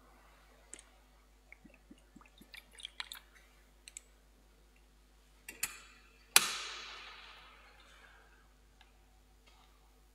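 Metal altar vessels being handled: a scatter of small clicks and clinks, then one sharp knock about six seconds in that rings out and echoes through the church for over a second.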